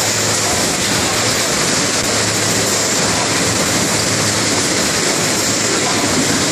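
TPMI 2400 SS automatic case packer running at speed: a steady, dense rush of machine and conveyor noise with no pauses.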